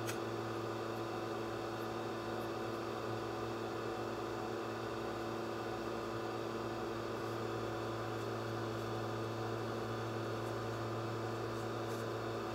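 Steady low electrical hum with several fixed tones under a light hiss, unchanging throughout, with a few faint small clicks.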